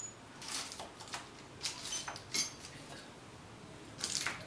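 Light metallic clinks and taps of steel transmission gears and washers being handled and fitted onto the gearbox shaft of a Bajaj Pulsar 220F engine. A handful of scattered clinks, some with a brief ring, the loudest near the end.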